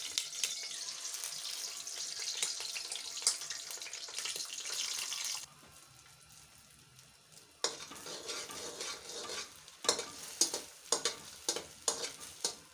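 Beaten eggs sizzling in hot oil in a metal karahi. After a quieter stretch about halfway, the sizzling returns with a fork scrambling the eggs, clicking and scraping sharply against the pan.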